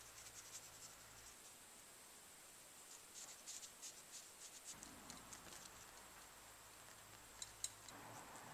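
Near silence with faint scratching and light ticking, busiest in the middle, and two sharper ticks near the end.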